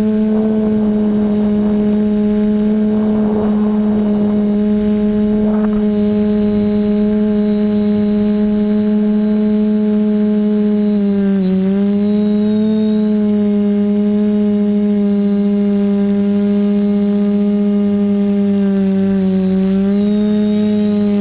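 The TBS Discovery quadcopter's Sunnysky 2216 800kv brushless motors spin 10x5 propellers in flight, making a steady drone with a thin high whine above it. The pitch sags briefly twice, about eleven seconds in and again near the end, as the throttle eases.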